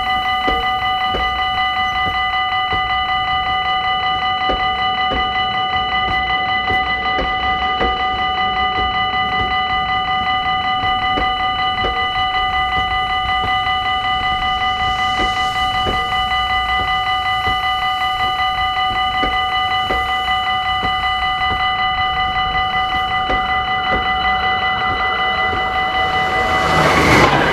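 Level-crossing bell ringing steadily in a fast, even pulse, over the faint wheel knocks of a passenger train crossing slowly. Near the end the rushing noise of a second train passing at speed swells up loudly.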